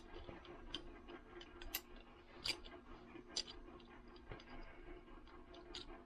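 Scattered light clicks and ticks, about seven of them, from a metal utility knife and its razor blades being handled and fitted, over a faint steady hum.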